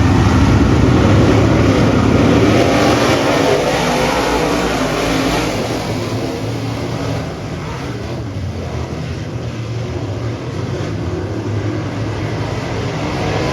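Dirt-track modified race car engines running hard at speed, loudest in the first few seconds and then easing off a little.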